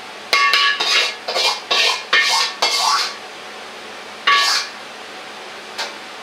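A metal ladle scraping and clanking in a wok, in quick strokes with a metallic ring: about six in the first three seconds, then one more about four seconds in.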